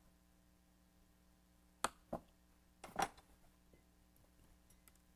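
A few light clicks and knocks from handling a trimming tool and a leather-hard clay teapot handle on a wooden worktable, two about two seconds in and the loudest about three seconds in, with fainter ticks near the end, over a quiet room hum.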